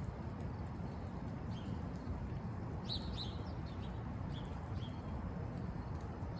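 Steady low rumble of a car driving, with a few short high chirps about halfway through.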